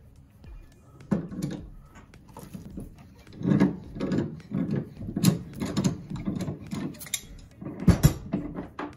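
Handling noise of metal tap parts and pliers as old washer tap spindles are worked out of the wall: irregular clinks, knocks and scrapes, the loudest knock about eight seconds in.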